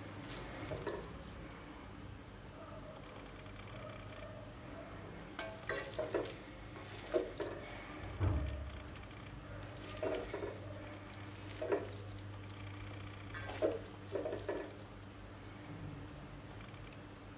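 Noodles being stir-fried in a metal wok: a spatula scrapes and knocks against the pan every second or two over a low frying sizzle, with a steady low hum underneath.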